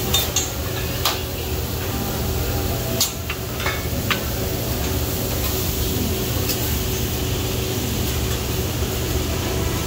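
Food sizzling on a steel teppanyaki griddle over a steady low hum, with a few sharp metal clicks of the spatula against the plate, most of them in the first four seconds and one more about six and a half seconds in.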